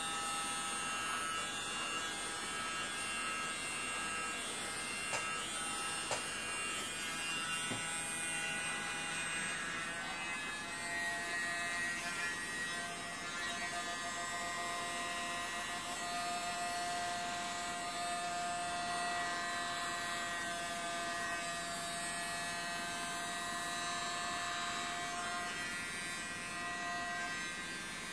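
Small handheld electric mini blower running steadily, a motor whine made of several steady high tones.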